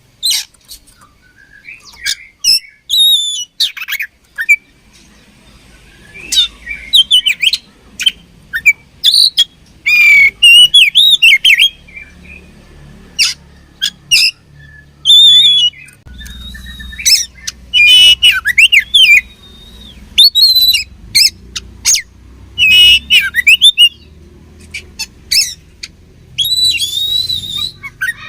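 Oriental magpie-robin (kacer) singing: a rapid run of loud whistled phrases and sharp chirps that slide up and down in pitch, delivered in short bursts with brief pauses between them.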